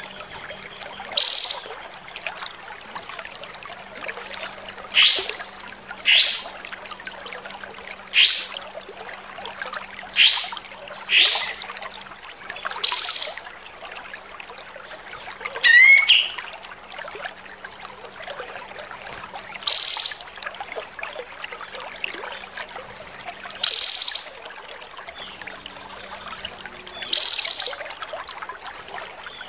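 Kapas tembak bulbul calling: about eleven short, harsh, quick sweeping notes, spaced one to four seconds apart, over a steady background hiss.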